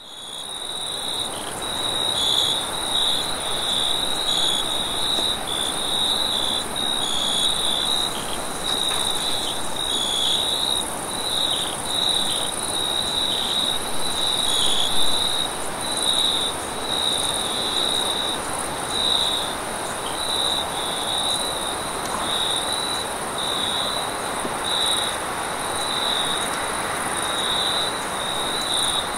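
Crickets chirping in a dense, pulsing chorus, with a steadier high insect trill above them, over a constant rush of wind. The whole bed fades in at the start.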